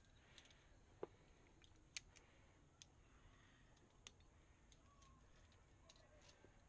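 Near silence broken by a handful of faint, sharp clicks of metal climbing gear: carabiners and rope hardware being handled at an anchor. The loudest clicks come about one and two seconds in.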